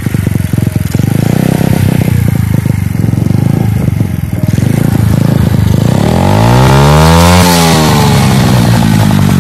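Romet Ogar 202 moped's 50 cc four-stroke engine running through an aftermarket Akrapovič silencer on a custom elbow pipe. It runs unevenly for a few seconds, then is revved up sharply about six seconds in and drops back.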